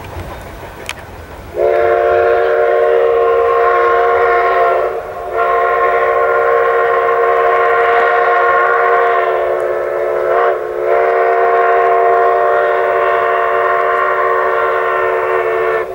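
Steam whistle of Durango & Silverton K-36 locomotive #481, a chord of several notes sounded at once, blown in long blasts: one of about three seconds starting about a second and a half in, then a long blast of about ten seconds with a brief dip midway, cutting off at the end. A low rumble of the approaching train is under it before the whistle starts.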